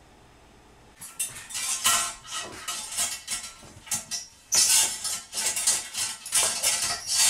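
A long pole being rammed and scraped back and forth through the trapway of a porcelain toilet lying on its side, clearing it. From about a second in comes a run of irregular clattering knocks and scrapes against the ceramic.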